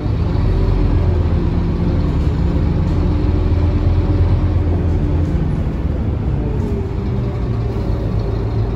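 Scania K230UB city bus's five-cylinder diesel engine running as the bus drives, heard from inside the passenger cabin as a steady deep drone that eases off a little about five seconds in.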